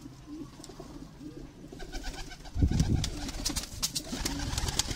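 Domestic pigeons cooing. About halfway through, a louder low rumble of handling noise comes in, with scattered sharp clicks after it.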